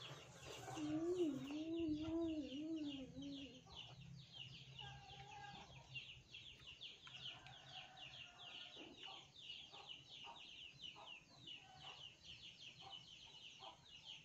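A child hums a wavering, closed-mouth 'mmm' for about three seconds while eating, followed by faint chewing clicks of crunchy snow fungus. A rapid, high chirping runs steadily in the background.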